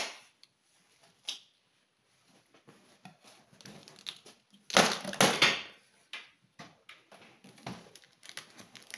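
Knife cutting the plastic packing straps on a cardboard box, with small taps and scrapes against the cardboard. A louder rasping scrape of blade and strap on cardboard comes twice about five seconds in.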